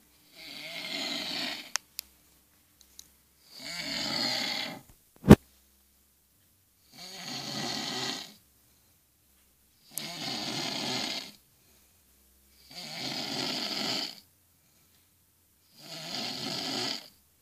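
A person snoring: six rasping snores of about a second and a half each, coming roughly every three seconds. A single sharp click about five seconds in is the loudest sound, with two faint ticks just before two seconds.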